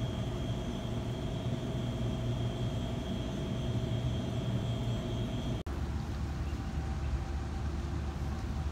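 Steady urban background hum, low and even, with a faint high whine over it; about five and a half seconds in it drops out for an instant and gives way to a different steady low rumble.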